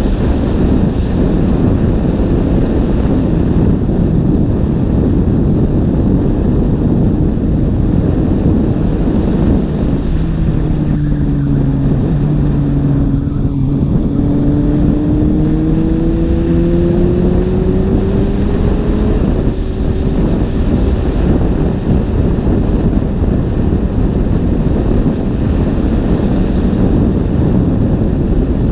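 Suzuki GSX-S750 inline-four motorcycle engine with an IXRACE aftermarket exhaust, running on the road under heavy wind noise on the microphone. About ten seconds in, the engine note sinks as the throttle is rolled off, then climbs steadily for about five seconds as the bike pulls away again.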